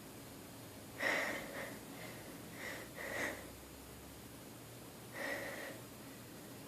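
A woman sniffing and catching her breath in four short bursts, the first about a second in the loudest, as her nose is irritated by dust and she is about to sneeze.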